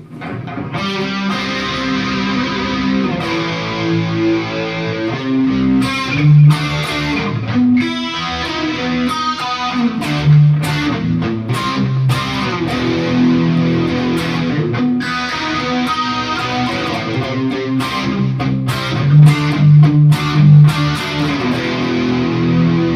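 Ibanez Jem electric guitar played through a Kemper profiler's 1959 Marshall Super Lead plexi profile with a distortion stomp, reverb, a short delay and chorus, sounding distorted held chords and notes.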